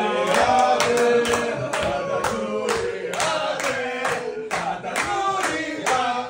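A group of voices singing together, with steady hand-clapping in time at about three claps a second.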